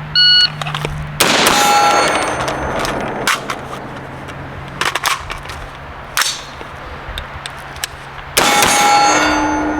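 Shot timer beeps, then a 5.56 rifle fires and a steel target rings about a second later. Sharp clicks and clacks follow, consistent with working the rifle's action. A second shot with the same steel ring comes near the end.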